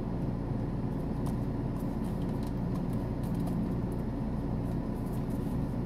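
Steady low hum of a car cabin with the engine or a fan running, and faint light rustles of a paper leaflet being handled.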